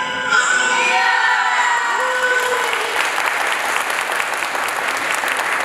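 Music stops just after the start, a few voices call out with sliding pitch, and then an audience breaks into applause from about three seconds in.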